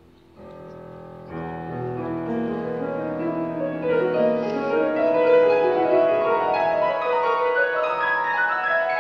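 Symphony orchestra playing classical music. After a quiet pause it comes in softly about half a second in, grows louder a second later and swells, with climbing lines near the end.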